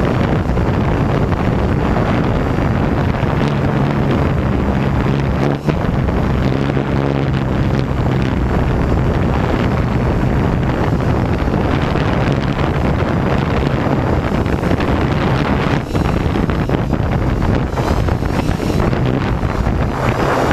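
Hexacopter's electric motors and propellers humming steadily, buffeted by strong wind noise on the microphone.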